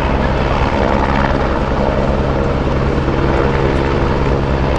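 Helicopter's rotor and engine running loud and steady as it picks up water from the reservoir.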